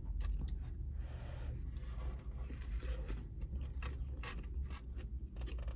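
A person chewing a mouthful of soft food close to the microphone, with scattered small wet clicks and smacks, over a low steady rumble.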